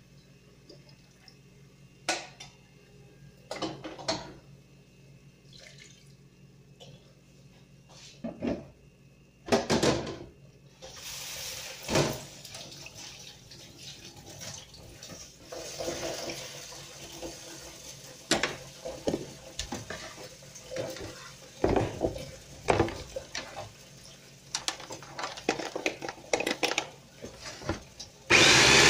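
Kitchen clatter: dishes and utensils knocking and clinking now and then, with water running from a tap for a stretch. Right at the end an electric mini chopper switches on and runs loud and steady.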